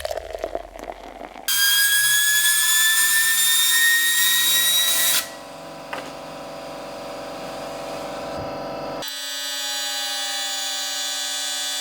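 High-speed whine of fidget spinner bearings spinning, heard in three cut-together clips. The first is loud and its pitch rises slowly as it speeds up; the second is quieter and steady; the third is a steady whine with one tone sinking slightly.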